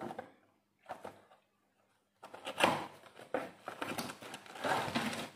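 Packaging being handled: two brief scrapes, then from about two seconds in a run of irregular crinkling and rustling as a tripod in a plastic bag is pulled out of its cardboard box.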